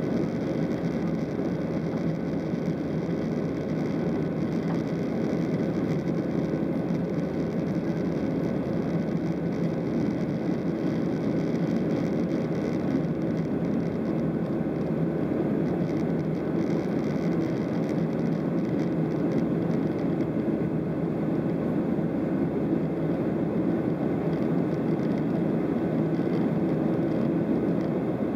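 Steady in-flight cabin noise of a Boeing 737-700: the CFM56 turbofan engines and rushing airflow heard from a window seat over the wing, a constant low noise with a faint steady hum on top.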